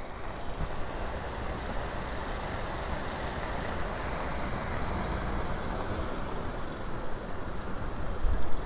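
Broan-NuTone 60-CFM upgrade-kit bath fan running out of its ceiling housing, its motor spinning the black blower wheel with a steady whoosh of moving air. A single knock near the end.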